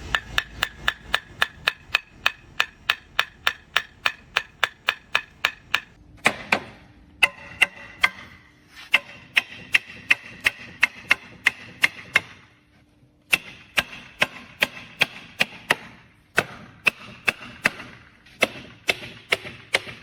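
Hammer striking a wood chisel in quick, even blows, about four a second, each with a short metallic ring, chopping out a mortise for a wood joint. The blows come in runs with brief pauses between them.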